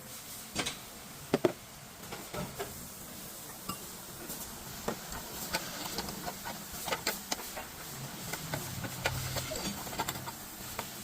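Scattered clicks and light metallic taps of hand tools at work on a car's fuel filter and lines, two sharper knocks about a second in, with a low hum rising briefly near the end.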